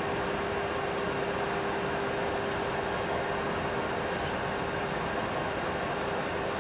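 Steady cockpit noise of a Boeing 737 Classic full flight simulator in a climb: an even rush of simulated engine and air noise with a steady mid-pitched hum running through it.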